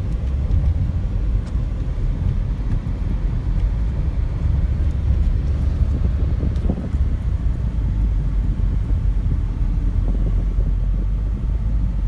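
Car driving, heard from inside the cabin: a steady low rumble of engine and road noise.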